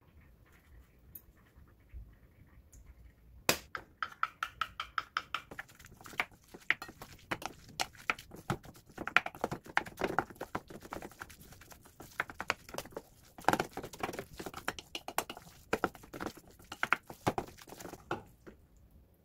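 A wooden spoon stirring rice with a fried egg and kimchi in a stainless steel bowl: quick, irregular knocks and scrapes against the steel, which start about three and a half seconds in, with the bowl ringing briefly.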